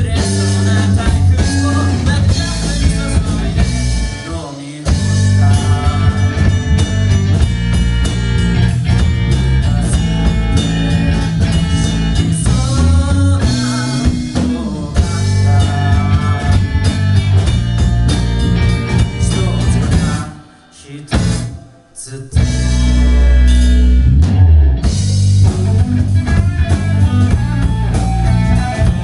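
Rock band playing live through a club PA: drum kit, electric guitars and bass, with singing. Near the three-quarter mark the band stops for about a second and a half, then comes back in.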